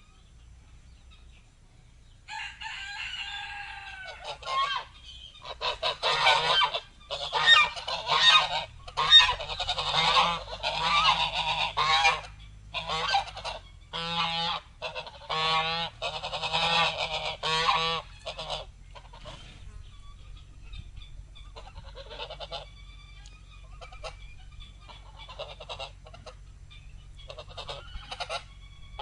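A group of geese honking: after a quiet couple of seconds, a long run of loud, overlapping honks, which thins out to fainter, scattered honks over the last third.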